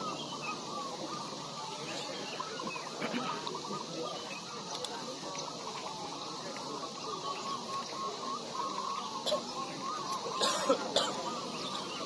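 Many zebra doves (perkutut) cooing at once, their coos overlapping into a continuous chorus, with a couple of sharp clacks near the end.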